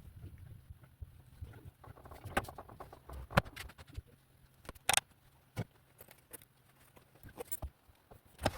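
Scattered light clicks and knocks at irregular intervals, like objects being handled, over a faint low hum.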